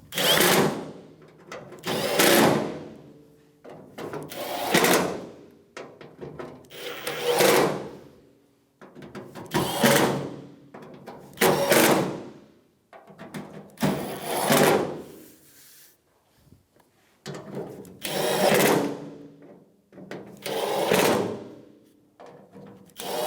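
Power driver with a T30 Torx bit running sheet-metal screws into a truck tailgate's inner cover panel, one screw at a time. About nine short runs of a second or so each, two to three seconds apart, each whirring and fading as the screw bottoms out.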